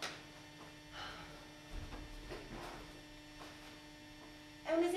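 Steady electrical hum with a few faint knocks in the middle; a voice starts speaking near the end.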